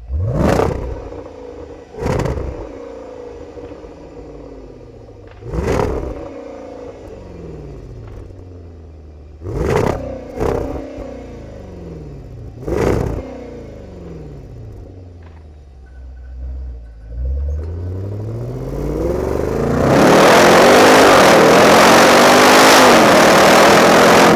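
Range Rover Velar SVAutobiography's supercharged 5.0-litre V8 heard at the exhaust tips: revved in about six short, sharp blips that fall back to a burbling idle. Near the end it pulls away and accelerates hard, the exhaust note rising and held loud under heavy wind and road noise.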